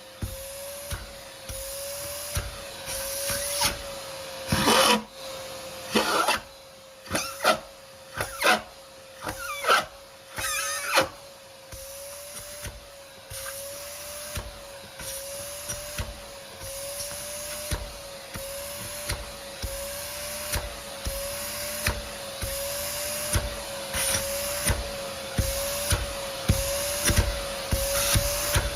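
Vacuum cleaner running with a steady motor whine that wavers slightly in pitch. From about four to eleven seconds in comes a series of sharp, loud crunches and clatters as the nozzle takes up debris, followed by softer bumps.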